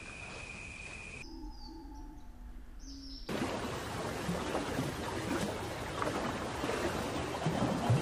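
A spliced nature-ambience soundtrack. It opens with a steady high-pitched buzz, then has a short, quieter stretch with faint bird chirps. From about three seconds in comes a louder rushing noise with irregular splashes, as of water.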